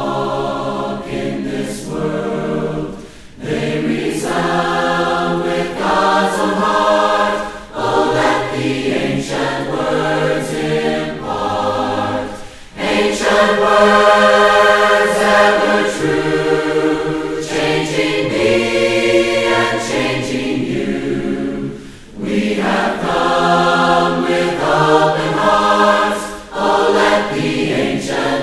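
A group of voices singing a hymn a cappella in harmony, in phrases of a few seconds with short breaks between them.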